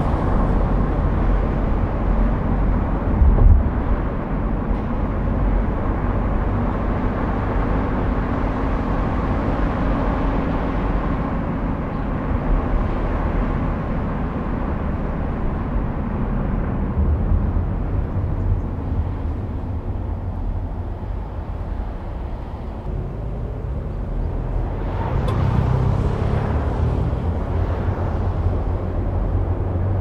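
Car driving along a road: steady low engine and tyre rumble, with a brief thump about three and a half seconds in and a swell of louder road noise a little before the end.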